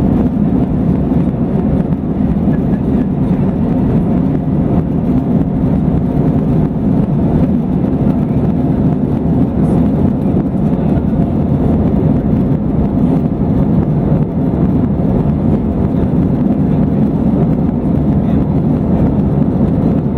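Steady, loud cabin noise of an Airbus A321-211 at takeoff thrust, its CFM56 turbofan engines running with rushing air, through lift-off and the first seconds of the climb.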